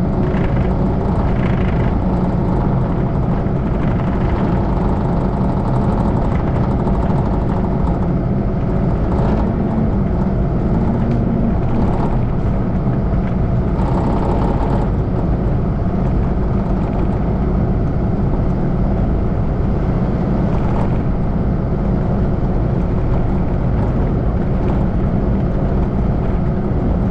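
Heavy diesel engine running steadily under load, a constant low drone with no pauses.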